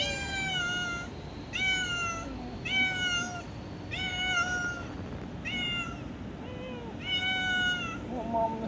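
Orange tabby tomcat meowing again and again, about eight short meows roughly a second apart, each dipping a little in pitch at its end.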